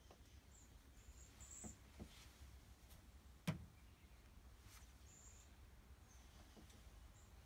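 Near silence with faint, short, high bird chirps and a few soft clicks, one sharper click about three and a half seconds in.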